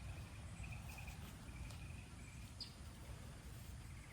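Faint, steady, high insect trill over a low background rumble, with a few soft clicks.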